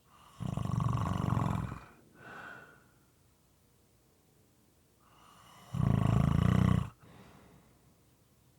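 A person snoring moistly: two loud, fluttering snores about five seconds apart, the first followed by a short, quieter breath.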